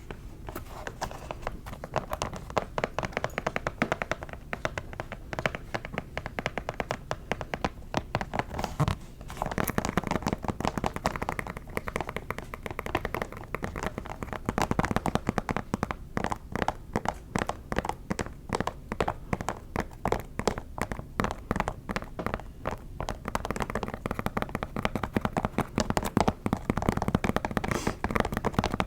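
Rapid, continuous tapping on a shoe, with a brief lull about nine seconds in.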